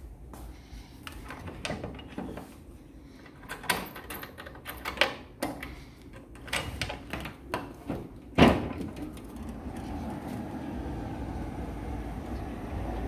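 A wooden window frame being worked open: rattles and knocks of the frame and latch, with one loud bang about eight seconds in. From about ten seconds in, a steady noise from outside comes through the open window.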